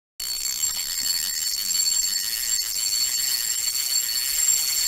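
Intro sound effect: a steady, high-pitched ringing tone over a hiss, starting abruptly just after the beginning.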